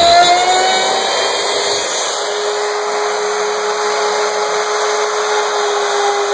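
CNC router spindle (a handheld wood router) whining at speed while cutting MDF with a 1/4" flat-end bit. Within the first two seconds the rough cutting noise fades out and the whine rises a little in pitch, as the load comes off. A lower, steady mechanical tone carries on beneath it.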